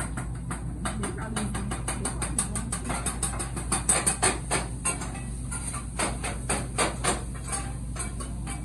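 Metal spatulas chopping cheesesteak meat on a flat-top griddle: a rapid run of sharp clanking strikes, several a second, over a steady low hum.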